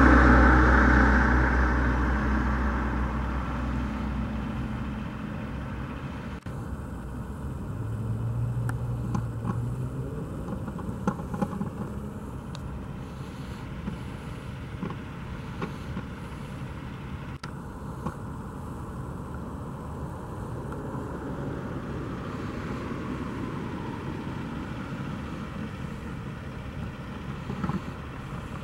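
A motor vehicle's engine, loud at first and fading away over the first five seconds or so, then a steady low outdoor street hum with a brief rise in engine pitch a few seconds later.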